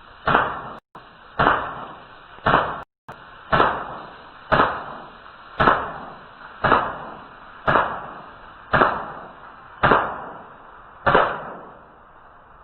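Umarex Morph CO2 airgun fired eleven times in steady succession, about one shot a second, each a sharp crack with a short tail.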